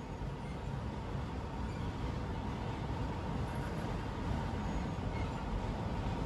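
Freight train cars, autoracks and boxcars, rolling past a grade crossing: a steady low rumble that grows a little louder, with a faint steady tone above it.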